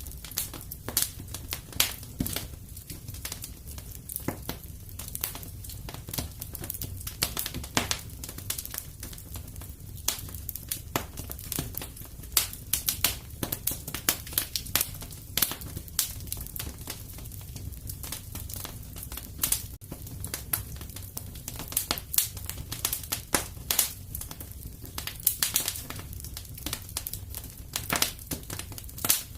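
Fireplace fire crackling, with frequent sharp pops of varying loudness over a low, steady rush of the flames.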